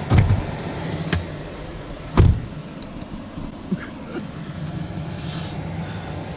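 Ice-bound windshield wipers of a pickup truck straining to sweep, with two heavy thumps about two seconds apart and a few lighter clicks, over the idling engine and the heater fan. The wipers are frozen to the glass.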